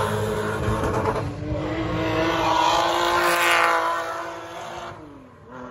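1970s and 80s touring race cars driving past at speed, their engines held at high revs. The engine noise fades as they pull away, and near the end the pitch drops sharply as the revs fall.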